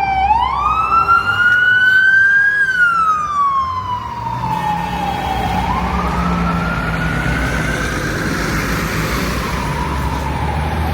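Emergency vehicle siren wailing, rising and falling slowly in pitch through two full cycles, over low traffic rumble.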